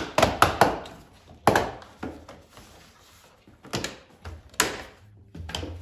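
Plastic door sill trim panel being pulled up by hand, its retaining clips letting go in several sharp clicks and knocks, with plastic rubbing between them.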